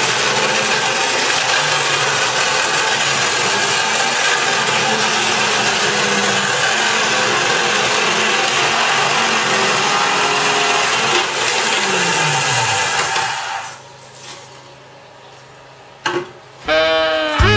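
Macroza electric wall chaser milling a groove into a hollow clay block wall, running loudly and steadily under load. About twelve seconds in, the motor winds down with a falling pitch and the cutting stops; music starts near the end.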